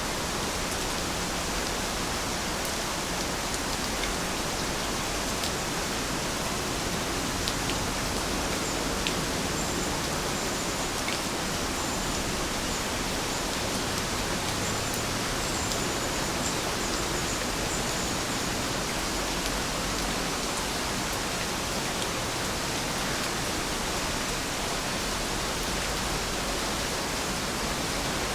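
Heavy rain falling steadily: a dense, even hiss with a few sharper ticks of single drops.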